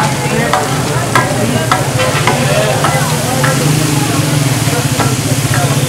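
Chicken pieces sizzling and frying on a large hot tawa griddle where liquid has been poured on, with sharp clicks of a metal spatula striking the griddle about every half second to second, over a steady low hum.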